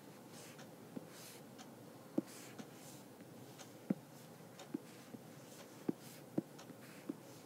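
Faint, irregular clicks and taps, about nine of them, over quiet room tone with soft rustling between them.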